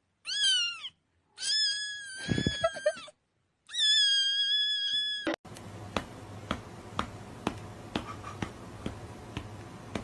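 A high-pitched cat meowing three times, as a meme sound clip: a short falling meow, then two long drawn-out meows. After about five seconds, a quiet ticking beat about twice a second starts over a low hum.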